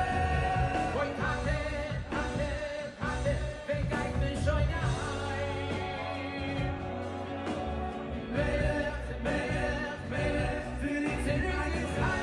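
Jewish music performed live: a male lead vocalist sings into a microphone over a live band, with a steady bass and drum beat.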